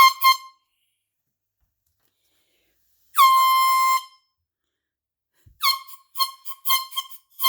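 Handheld air horn sounding: two quick blasts, then one long blast of about a second, then a rapid string of short toots near the end.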